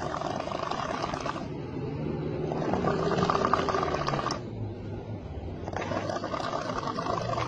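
A person snoring heavily, with rattling, louder stretches alternating with lower, smoother ones in a breathing cycle of about three seconds.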